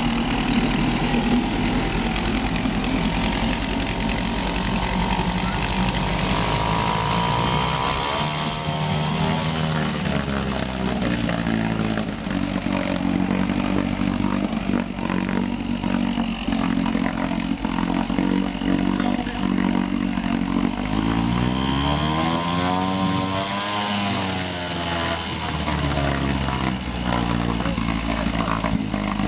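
A 1966 McCulloch 4 hp two-stroke outboard motor running steadily, revved up and back down twice, about a third of the way in and again past two-thirds. It is running well after its carburettor was cleaned and its coil, condenser and points were replaced.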